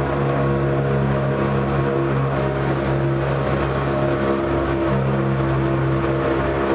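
Arctic Cat Wildcat Trail side-by-side's engine running at a steady speed as it drives through a road tunnel, with an even drone that holds one pitch.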